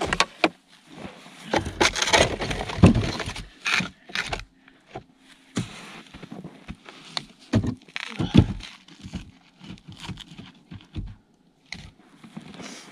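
Split firewood logs and a chainsaw clunking and knocking as they are shifted and stacked in a plastic sled, with irregular knocks and scraping, busiest early on and again a little past the middle.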